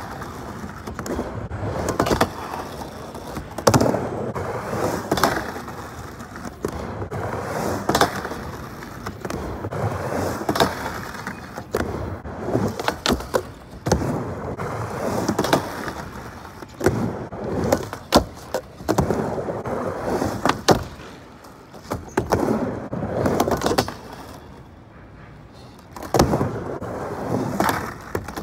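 Skateboard wheels rolling and scraping as the board slides along the top edge of a ramp, with many sharp clacks of the board hitting the ramp and ground. A quieter stretch comes a little after the middle before the rolling and clacking pick up again.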